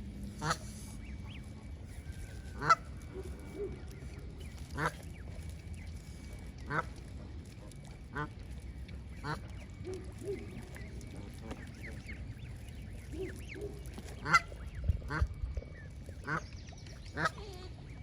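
Geese honking in short separate calls, one every second or two, with the loudest calls about three seconds in and again about fourteen seconds in, over a steady low rumble.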